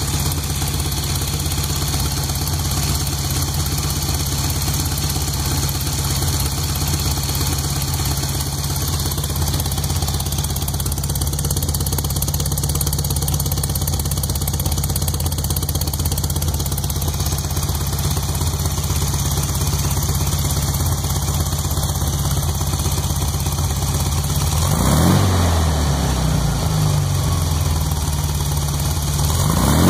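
Freshly rebuilt 1641 cc engine idling steadily, blipped up and back down briefly about 25 seconds in and again at the very end. The owner says it makes a popping noise and a knocking noise.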